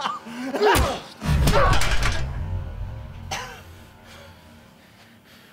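A heavy thud about a second in, with a low rumble that dies away over the next second, like a body blow landing. A fainter knock comes about two seconds later.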